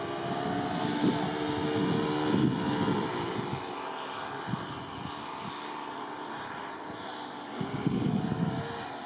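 Twin-propeller model transport plane flying past, its propellers droning in a steady hum that drops in pitch and fades about three seconds in, then swells again near the end as it turns back.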